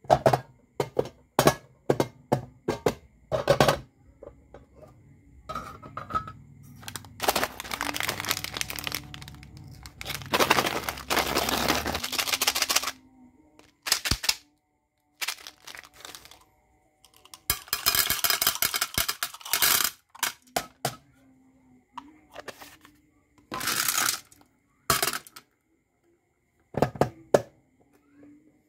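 Round metal candy tins and a plastic jar of candy-coated chocolates handled by hand: a run of sharp clicks and knocks from tin lids and the jar. Two longer stretches of rattling from the small hard candies come near the middle and again about two-thirds through.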